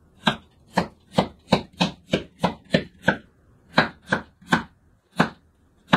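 Big kitchen knife slicing a daikon radish thinly, each cut ending on a wooden cutting board: about fourteen chops, two to three a second, with short pauses around the middle and near the end.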